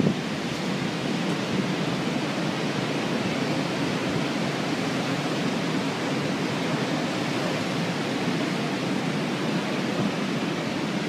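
Hurricane storm noise: a steady rush of wind and water without pause.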